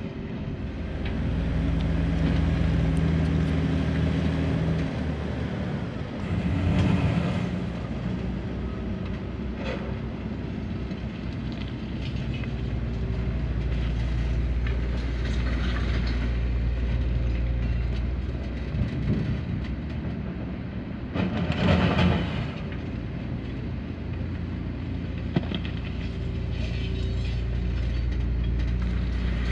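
Steady mechanical rumble with a low hum and scattered clattering, swelling louder twice, about a quarter of the way in and again about three quarters of the way in.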